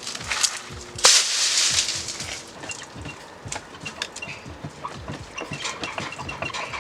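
Knocks and clatter from handling a boat's outdrive after its bolts are off, with a loud burst of noise about a second in that lasts about a second.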